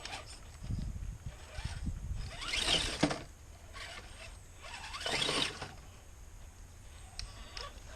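Axial SCX10 II Defender RC scale crawler driving over rough ground, its motor and drivetrain working in uneven spurts, with two louder noisy bursts around two and a half and five seconds in.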